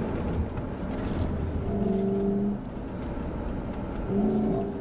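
A 4x4 SUV's engine running hard while driving over loose sand dunes, heard from inside the cabin over a constant low rumble; a steady engine note rises out of it twice, about two seconds in and again near the end.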